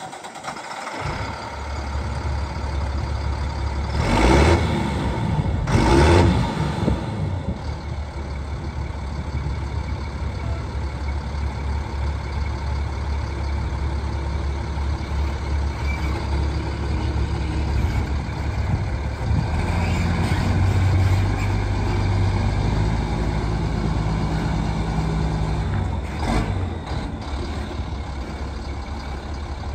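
Kenworth T300 roll-back tow truck's diesel engine idling with a steady low rumble. Two brief louder bursts of noise come about four and six seconds in.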